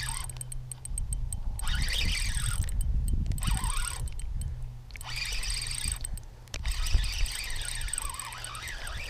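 Fishing reel cranked in three spells, its gears whining in a wavering pitch as line is retrieved while a hooked bass is brought in.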